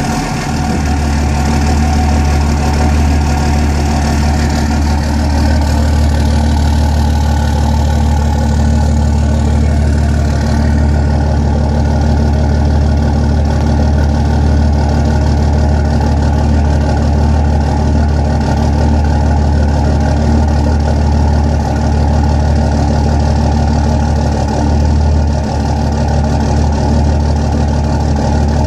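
Engine idling steadily just after starting. The owner suspects a bad fuel injector. A higher hiss in the sound eases off about ten seconds in.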